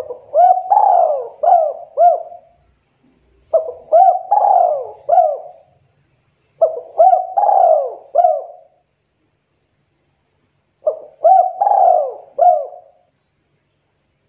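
Spotted dove (tekukur) cooing in the 'kuk 2' song type. It sings four repeated phrases, roughly three to four seconds apart. Each phrase is a few notes: a longer drawn-out coo followed by two short closing coos.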